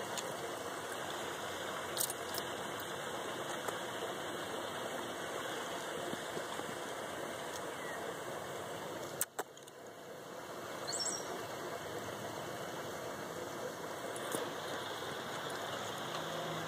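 Steady outdoor background noise with no clear source, broken by a few short clicks and a brief high chirp about eleven seconds in.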